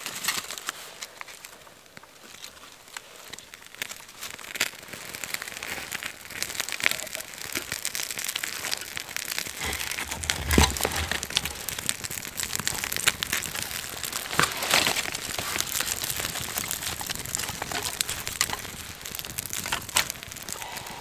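Birch bark and thin kindling sticks being handled and laid on a small fire, the bark crinkling and crackling as it catches and burns, with many small snaps and a thud about ten seconds in.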